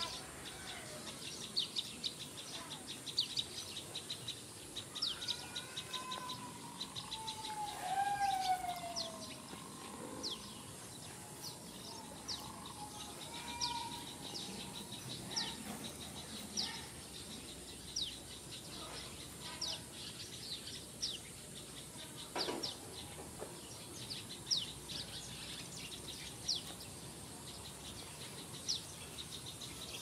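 Small birds chirping over and over, with a steady high insect drone beneath. A few longer, lower falling calls come in between about five and ten seconds in.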